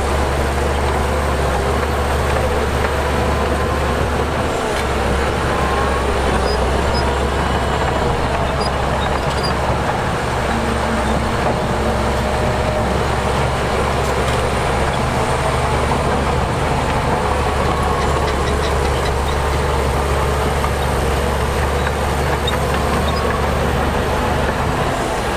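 Heavy diesel earthmoving machinery running steadily: a bulldozer's and dump trucks' engines with a deep, even rumble.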